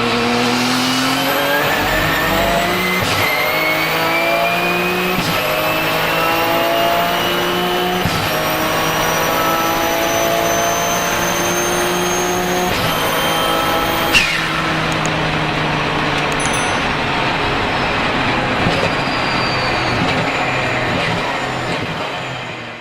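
Porsche 997 GT2 RSR's twin-turbo 3.9-litre flat-six heard from inside the car, accelerating hard through several sequential-gearbox upshifts, with a high turbo whistle climbing in each gear. About fourteen seconds in the throttle closes with a sharp pop and the whistle drops away, as from the blow-off valve. The engine note then falls as the car slows, and the sound fades out near the end.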